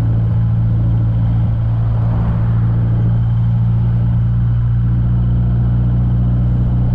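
MG Midget being driven at a steady pace, heard from the driver's seat: its engine hums at an even pitch under road and tyre noise.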